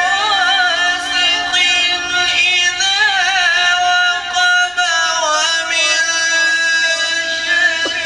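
A man reciting the Quran in the melodic, drawn-out tilawat style. His voice winds through wavering ornaments, then settles into one long held note for the last few seconds.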